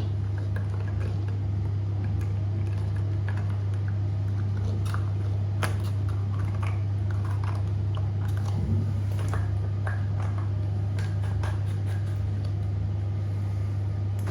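A steady low hum throughout, with scattered light clicks and taps as the parts of a part 2 toilet cistern ball valve are fitted back together by hand.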